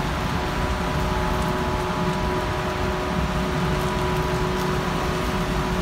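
Steady rain and traffic on wet roads, an even wash of noise with a low rumble. A constant hum holding a few steady tones runs under it.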